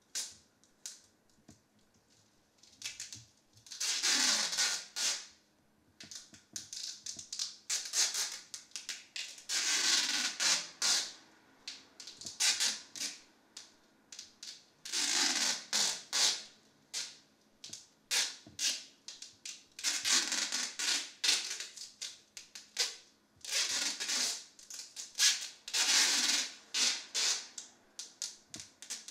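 Clear adhesive tape pulled off the roll in rips lasting about a second, over and over, as it is wound around a person's head, with small crackles and clicks between the pulls.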